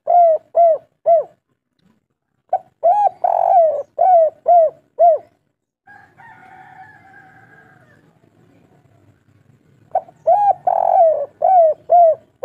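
Spotted dove cooing in repeated phrases of short, arching coos, the third coo in each drawn out longer. The tail of one phrase falls at the start, then two full phrases of about six coos each follow, several seconds apart. A faint, hoarse sound comes between them.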